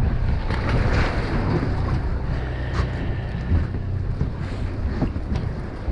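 Wind buffeting the microphone on a boat at sea, over a steady low rumble, with a few faint knocks and clicks.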